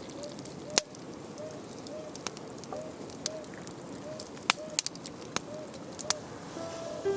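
Wood campfire crackling with irregular sharp pops. Over it, a bird repeats a short rising-and-falling call over and over.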